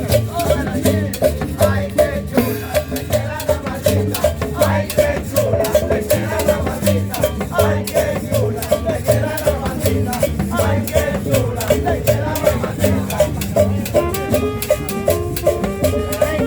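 Upbeat salsa-style tropical music with a steady beat, dense maraca-like percussion and a melody line.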